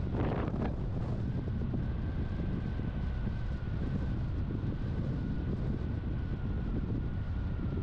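A car driving along a runway: a steady low rumble of engine and tyres, with wind buffeting the microphone. A thin, steady high whine sits on top from about a second in.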